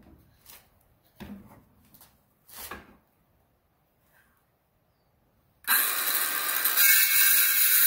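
A few light knocks as the wooden board is handled in the bench vise, then about five and a half seconds in a Ryobi cordless circular saw starts suddenly and runs loud, its blade cutting through the wooden board.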